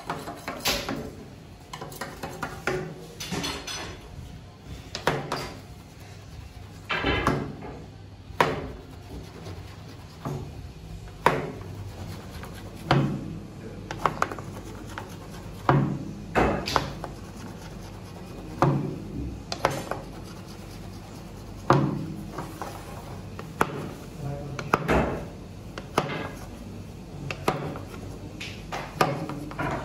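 A knife cutting through rolled baklava pastry in a steel baking tray, each stroke ending in a knock and scrape of the blade against the metal. The strokes come irregularly, about one every second or two.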